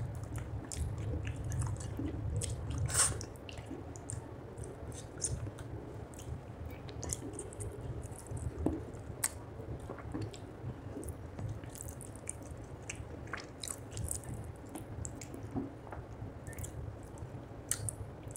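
Close-up wet chewing and mouth smacking of hand-eaten rice and fish curry: many short, sticky clicks and squelches, with one louder click about three seconds in.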